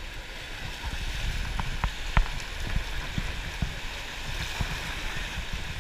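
Rushing river rapids streaming past a wooden river boat, a steady wash of water noise with a low rumble. A few sharp slaps and knocks come in the middle, the loudest about two seconds in.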